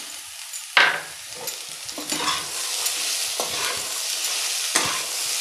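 Mixed vegetables with tomato and green peas being stir-fried in oil in a kadai, a slotted steel spatula scraping and knocking against the pan. One sharp clack comes about a second in, then further scrapes over a sizzle that grows louder from about two seconds in.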